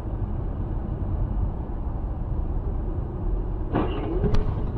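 Steady low road and engine rumble of a moving car, recorded by its dashcam. Near the end comes a brief sound that wavers in pitch, followed by a sharp click.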